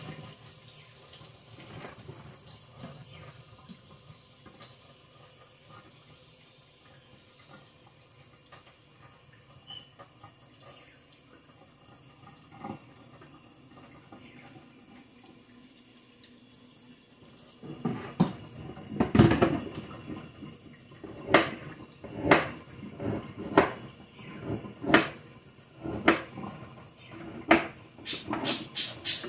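Faint water running in a kitchen sink at first, dying away; then, about two-thirds of the way in, a kitchen knife chopping on a cutting board in single sharp strokes about a second apart, quickening into a fast run of chops near the end.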